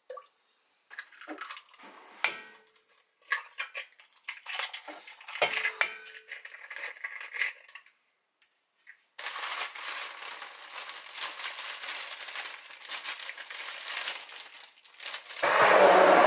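Glass and utensils clinking and knocking against a stainless steel pot as cake batter ingredients go in, followed by several seconds of steady noise. About a second before the end, a hand-held stick blender starts up and runs loud and steady.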